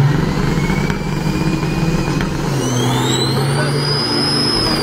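Diesel engines of two semi trucks revving hard at the start line of a drag race, pouring black smoke, their pitch stepping up and down. About halfway in a high whistle rises as the turbochargers spool up.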